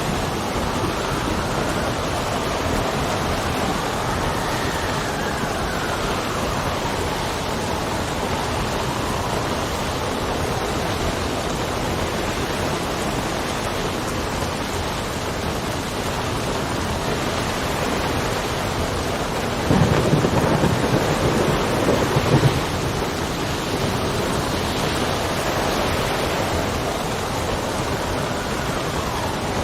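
Steady rain with wind, its howl slowly rising and falling in pitch. About twenty seconds in, a low rumble of thunder swells for a couple of seconds.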